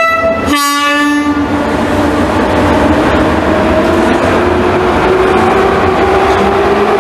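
EP07 electric locomotive sounding its two-tone horn, a short high note then a longer low note, then rolling past slowly with a steady low hum and a whine that rises gradually in pitch as it pulls away with its coaches.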